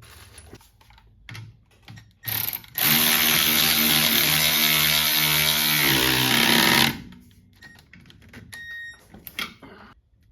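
A handheld power tool, such as a drill or impact driver, gives a short burst and then runs steadily for about four seconds before stopping abruptly, likely running a nut onto the shock mount. Light clicks and knocks of tools and parts come before and after.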